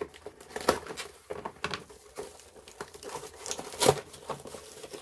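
Plastic packaging being torn open and handled: irregular crinkling and rustling with sharp snaps, the loudest a little before the end.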